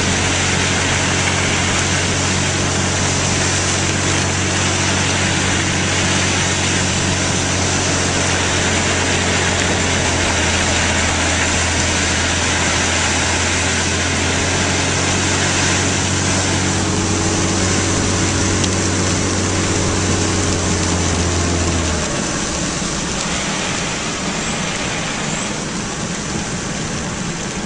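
Car engine idling with a steady low hum while heavy rain beats down throughout. The engine hum stops suddenly about six seconds before the end, leaving the rain.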